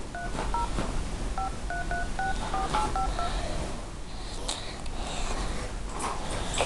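Touch-tone keypad beeps of a smartphone as a phone number is dialed: about ten quick two-note beeps in the first three seconds, then stopping.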